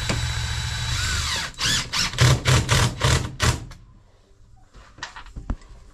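Cordless drill driving a screw into wall panelling. It runs steadily for about a second and a half, then gives several short bursts as the screw is seated, and stops about four seconds in.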